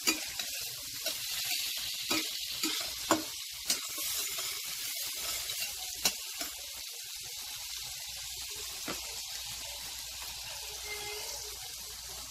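Chopped garlic sizzling in hot melted butter in a stainless steel skillet as it sautés toward browning: a steady high hiss, with a few sharp clicks in the first six seconds.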